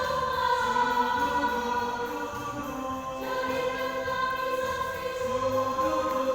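Choir singing long held chords in several parts, with a steady low bass line under the voices.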